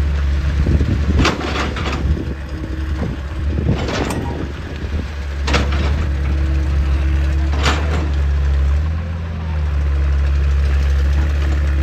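Hydraulic excavator's diesel engine running steadily, with about five sharp knocks as the machine works rock. The engine briefly drops lower about nine seconds in.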